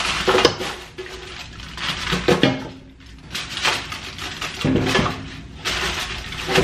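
Roasted beef bones and vegetables sliding off a foil-lined metal roasting tray and dropping into an empty stainless steel stockpot: several bursts of knocking and clatter against the pot, mixed with the rustle of crumpled aluminium foil.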